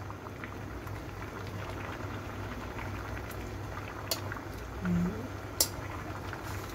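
Water boiling in a wok with carrot sticks and broccoli florets in it, a steady bubbling, with two sharp clicks about four and five and a half seconds in.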